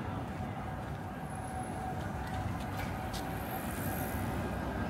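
Steady low rumble of passing road traffic on a city street, with a few faint clicks about two to three seconds in.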